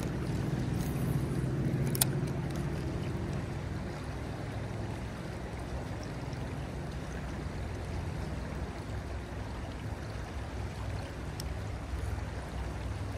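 River current flowing steadily past, a low, even rushing. One sharp click about two seconds in.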